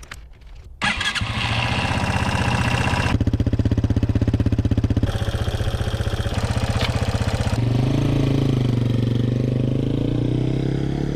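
Motorcycle engine running, most likely the Yamaha XT225's single-cylinder four-stroke. It comes in abruptly about a second in and runs steadily, with its pitch rising slightly in the second half.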